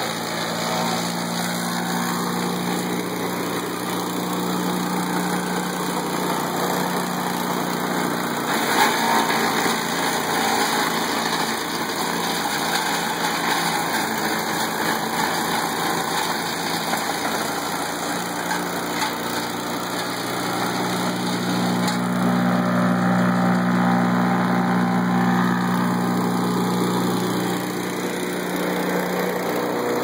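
Vermeer BC600XL wood chipper running steadily with a constant engine hum, with a short crackle about nine seconds in. It grows a little louder for several seconds late on.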